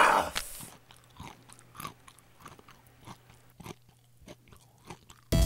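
Chewing: soft, irregular munching smacks and crunches, about two a second, dubbed onto a cartoon giraffe eating a leaf, over a faint steady low hum.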